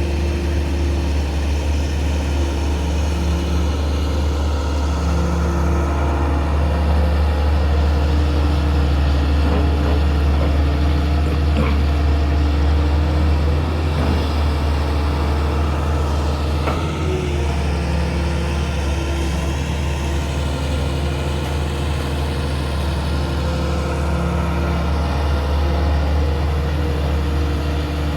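Hydraulic excavator's diesel engine running steadily while the machine digs, with the pitch of its hydraulic whine shifting slightly and a few faint knocks around the middle.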